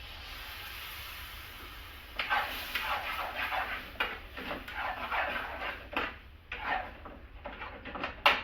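Curry sizzling in a hot pan as base gravy goes in. From about two seconds in, a ladle scrapes and stirs through the pan in rough repeated strokes.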